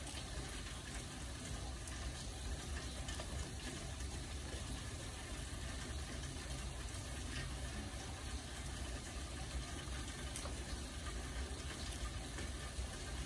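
Steady rain: an even hiss with a deep rumble underneath and scattered faint ticks of drops.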